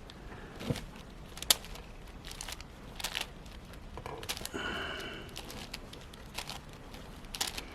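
Plastic layers of a 6x6 Rubik's cube being turned, giving scattered soft clicks and rattles.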